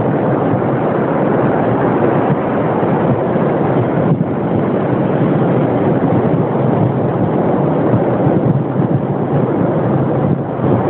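Steady rushing noise of wind and surf on a beach, continuous with no distinct events.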